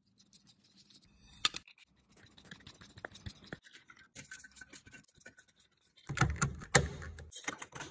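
Screwdriver and hands working on a plastic emergency exit sign and its fittings: scraping and small clicks, with one sharp click about a second and a half in. Near the end there is a louder stretch of knocks and scraping as a screw is driven into the sign's mounting plate.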